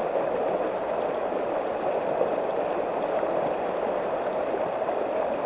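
Small, shallow rocky stream running over a riffle: a steady, even rush of water.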